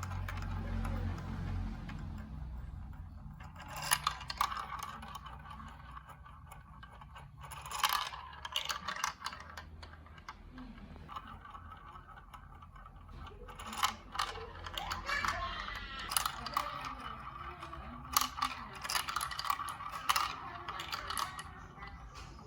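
Marbles rolling and clattering through a plastic building-block marble run: a continuous rattling roll with many sharp clicks, several louder clacks along the way.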